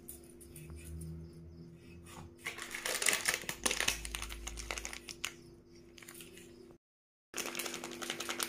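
Dry crackling and crinkling as salt and spice powder are sprinkled over fried raw banana pieces on a steel plate, over a steady low hum. The sound cuts out for a moment about seven seconds in.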